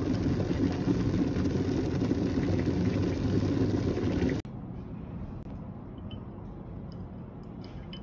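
Electric kettle boiling, a loud steady rumble of water at a rolling boil that cuts off about halfway through. A quieter hiss with a few faint light clinks follows.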